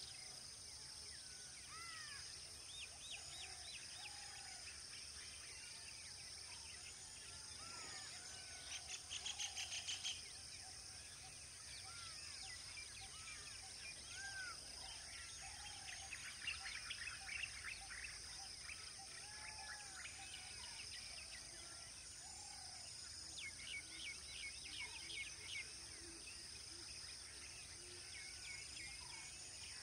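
Many birds calling in a faint chorus: scattered short chirps and whistles, with several rapid trills, the loudest about nine seconds in and others around sixteen and twenty-four seconds. A steady high hiss runs underneath.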